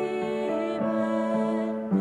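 Upright piano playing a slow hymn accompaniment in sustained notes, with a woman's voice singing along.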